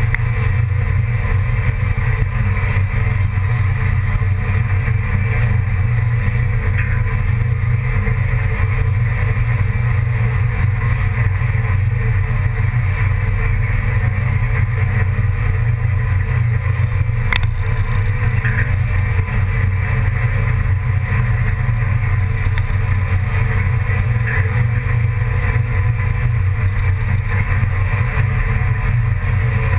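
A loud, steady engine drone with a constant low hum that holds one pitch throughout.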